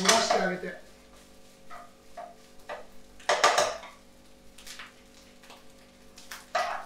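Metal ladle scraping and knocking against a wok-style frying pan while stir-frying fried rice: a string of short scrapes and clinks, the biggest cluster about three and a half seconds in.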